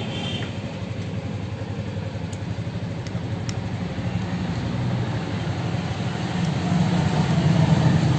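An engine idling steadily with a pulsing low rumble that grows louder near the end, with a few faint clicks over it.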